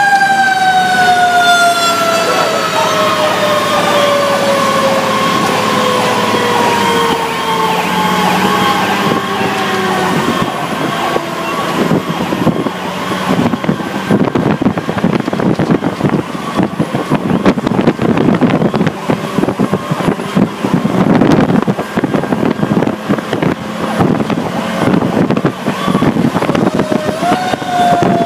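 A fire truck's siren, heard from inside the cab, winding down in one long slow fall in pitch over about ten seconds, over the engine and road noise of the 2008 Pierce Arrow XT aerial ladder truck. After that the truck's engine, tyres and wind rumble on unevenly, and near the end the siren winds up briefly and starts falling again.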